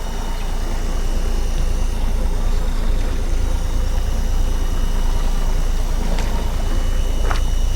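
Fishing boat's engine running steadily with a low rumble. There is a light click or two near the end.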